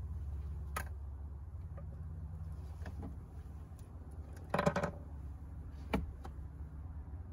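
Handling noises from a fiberglass driveway-marker rod and its plastic clips: a few sharp knocks and a short rattling clatter about four and a half seconds in, over a steady low hum.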